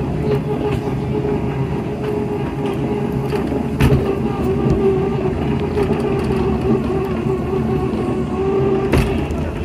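Small track-ride car running along its narrow steel rails: a steady mechanical hum with a constant whine and wheel rumble, and two sharp clacks, about four seconds in and near the end.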